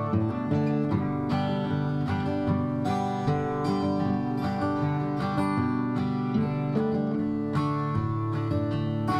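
Closing theme music of strummed acoustic guitar with a steady beat.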